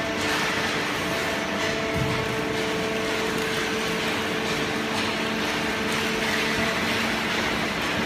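Horizontal paper and cardboard baler with its feed conveyor running: a steady machine hum with several held tones over a mechanical rumble.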